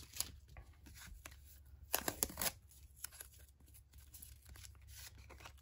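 Photocards and clear plastic card sleeves being handled: soft rustling and crinkling of plastic with light clicks and scrapes as cards slide in and out. The clicks come thickest about two seconds in.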